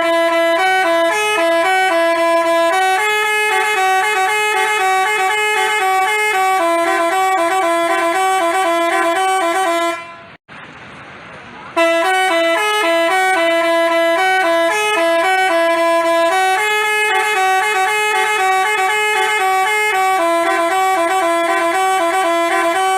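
Basuri telolet horn, a multi-tone bus horn, playing a melody of stepped held notes. It breaks off for under two seconds about ten seconds in, then plays the tune again.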